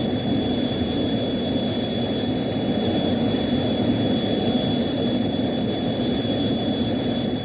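Ultraman Star's flying sound effect: a steady jet-like rush of noise with a thin high tone running through it.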